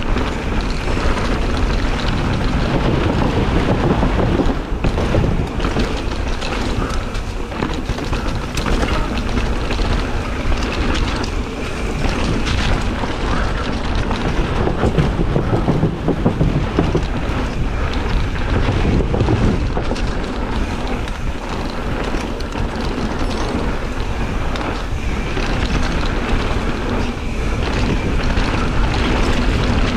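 Wind rushing over an action camera's microphone as a mountain bike descends a dirt trail. Tyres run on dirt and rock throughout, with scattered knocks and rattles from the bike over bumps.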